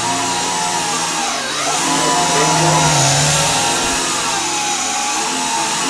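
Skull 1031 7.4-volt toy quadcopter flying close by: its four motors and propellers whir with a steady buzzing whine. The whine dips in pitch about one and a half seconds in and rises again as the throttle changes.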